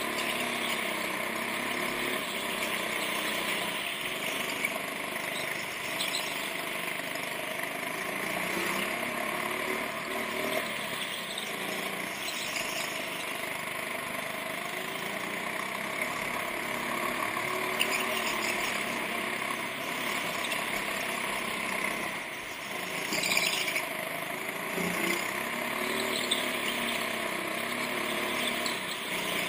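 Go-kart engine heard from the driver's seat, its pitch rising and falling as it revs up and eases off through the corners, with a brief squeal about three quarters of the way through.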